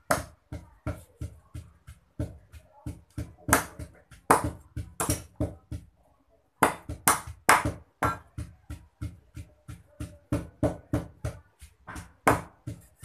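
Rapid, irregular knocks of a cleaver chopping raw chicken on a round wooden chopping block, mixed with a pestle pounding in a clay mortar, about three knocks a second with a brief break about six seconds in.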